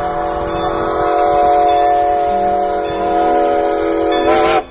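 Steam train whistle blowing one long, steady note over a hiss. It wavers briefly near the end and then cuts off suddenly.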